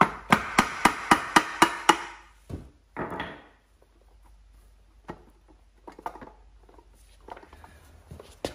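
Hammer tapping the crankcase cover of a 17.5 hp Briggs & Stratton lawn tractor engine to break it loose: about eight quick, sharp blows in two seconds, around four a second. Then a short scrape about three seconds in and faint knocks as the loosened cover is handled.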